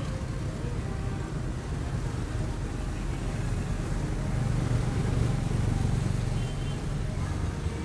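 Street traffic: a steady low rumble of passing vehicles that swells about halfway through and then eases, as one passes close by.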